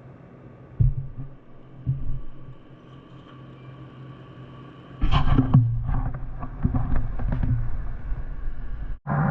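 Machine-shop machinery running: a low steady hum with a few knocks, then about five seconds in a much louder stretch of machine running with clunks and rattles, which cuts off suddenly near the end.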